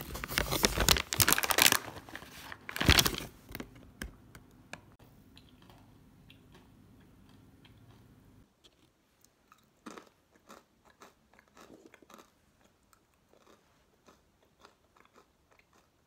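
Plastic bag of pecan halves rustled and crinkled in loud bursts near the start, then, after a cut, faint scattered crisp crunches and clicks of chips being handled and eaten.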